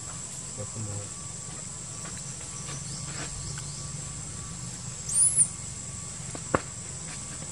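Outdoor ambience: a steady high insect trill over a low hum, with a brief high chirp that rises and falls about five seconds in and a single sharp click about a second later.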